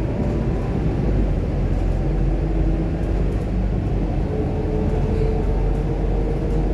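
Steady engine and road rumble of a moving city bus, heard from inside the passenger cabin, with a faint whine joining about four seconds in.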